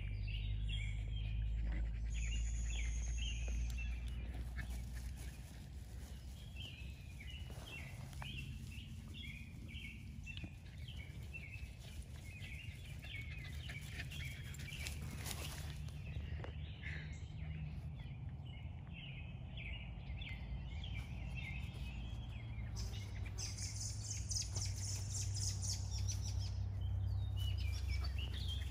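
Songbirds chirping and singing in many short, repeated notes, with a higher, faster trill for a few seconds about three quarters of the way through, over a steady low rumble.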